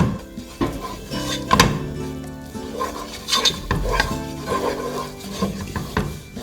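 A utensil stirring a butter-and-flour roux in a pan on the stove, with irregular scrapes and knocks against the pan.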